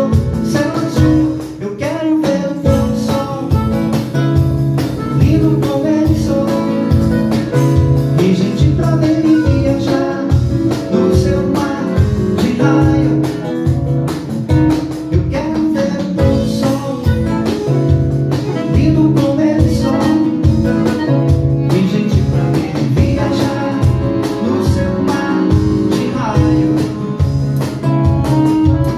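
A small live band plays accordion and guitar over a steady beat.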